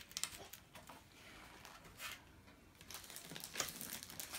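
Paper food wrappers rustling and crinkling as they are handled, a few short crackles and then a longer stretch of crinkling near the end.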